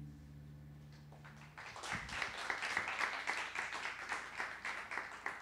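The acoustic guitar's last chord rings on and fades out. About a second and a half in, applause breaks out, with single claps standing out.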